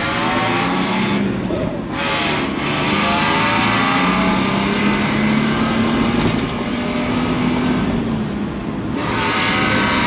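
Ford Ranger race truck's engine pulling hard under acceleration, heard from inside the cab. The pitch climbs, drops briefly about two seconds in, climbs steadily again, and dips once more near the end.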